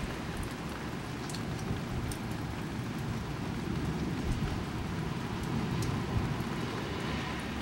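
Steady rain falling: an even hiss with a low rumble underneath and a few faint drop ticks.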